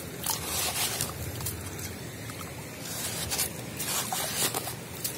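Wet sand and gravel scraped and crunched by hand in a plastic toy dump truck bed, in irregular gritty scrapes over a steady low rumble.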